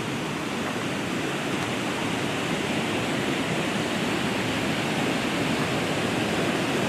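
Waterfall rushing: a steady roar of falling water that grows slightly louder.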